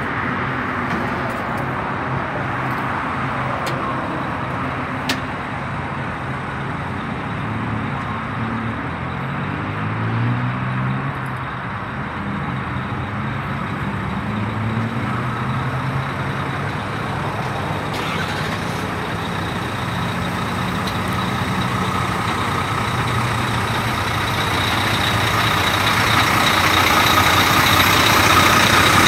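Diesel engine of a Mack semi truck idling, its low hum wavering a little in pitch, growing louder near the end.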